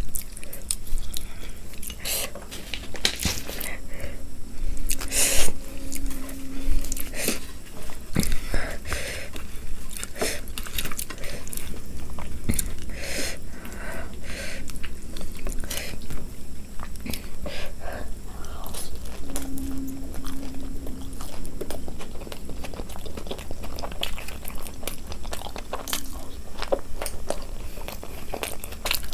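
A person chewing and biting food close to the microphone, with irregular wet smacks and crunches. Twice a short, steady low hum rises over the chewing.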